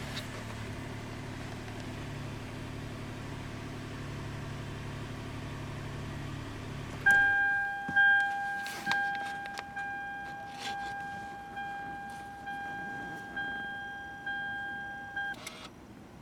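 Daihatsu Move Custom RS's engine idling steadily, then switched off about seven seconds in, after which the car's warning chime dings about once a second, ten times, and stops.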